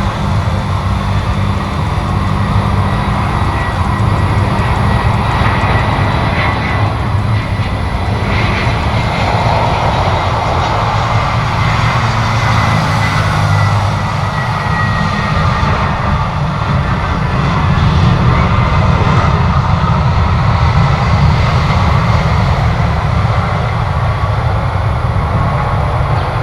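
Jet airliner engines running with a steady low rumble, with a faint high whine that drifts slightly down in pitch about halfway through.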